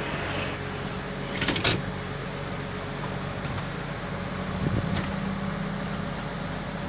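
Excavator diesel engine running steadily, with a thin high whine over it. Two sharp knocks come about a second and a half in, and a lighter knock near five seconds.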